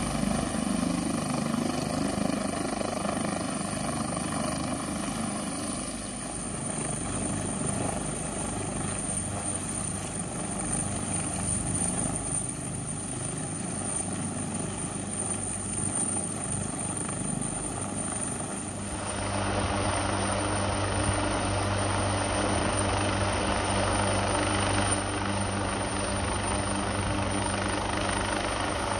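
Helicopter hovering, its rotor and turbine engines running steadily. The sound steps up abruptly about 19 seconds in, becoming louder with a strong steady low drone.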